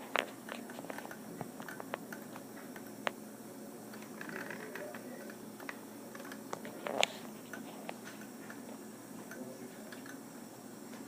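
Small motor of a battery-powered tornado-in-a-bottle device running steadily on a low setting, with scattered clicks and taps, the loudest near the start and about three and seven seconds in.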